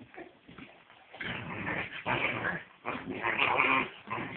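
Bloodhound and German Shepherd puppies vocalising as they play-fight, in two long bouts of dog noise starting about a second in and again near three seconds in.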